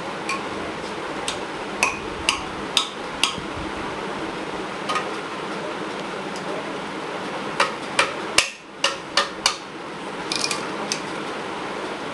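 Irregular sharp clicks and taps of plastic and metal parts as an electrician handles a plug, wires and tools, in small clusters with the loudest about eight seconds in, over a steady background hiss.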